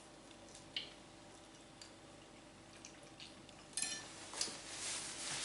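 Quiet close-up chewing of the last piece of arrosticino, with scattered soft clicks and mouth smacks, and a louder burst of eating noise from about four seconds in.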